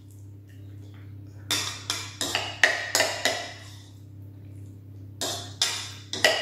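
Metal spoon clinking and scraping against a bowl while scooping mashed potato: a run of sharp clinks about a second and a half in, and another near the end.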